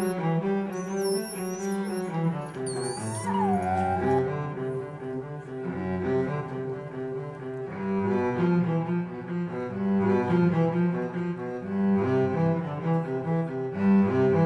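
Slow cello music, bowed notes held and changing about once a second. About three seconds in, a brief falling squeak cuts across it.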